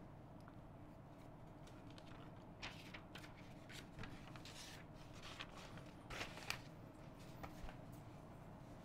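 Near silence: a low steady room hum with a few faint, brief clicks and rustles, the loudest about six and a half seconds in.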